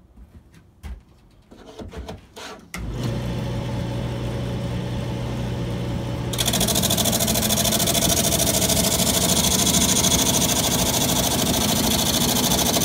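A few knocks and clicks, then the wood lathe's motor is switched on about three seconds in and runs with a steady hum, spinning a homemade sandpaper drum sander. About six seconds in, a board is fed under the drum and a loud, steady hiss of sandpaper grinding the wood joins the hum.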